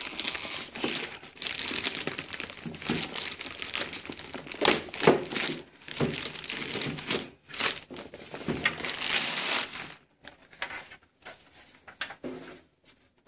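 Pink anti-static plastic bag crinkling and rustling as it is gripped, pulled open and slid off a device. The crinkling is dense for about ten seconds, then thins to a few scattered rustles near the end.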